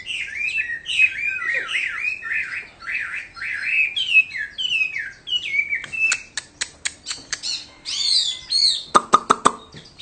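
Chinese hwamei singing a fast, varied song of quick whistled phrases. From about six seconds in the song thins out into a run of sharp clicks and short harsh notes.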